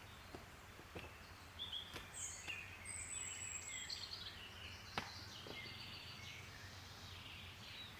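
Wild birds singing: several short, high chirping phrases over a faint steady background, with a few faint sharp clicks.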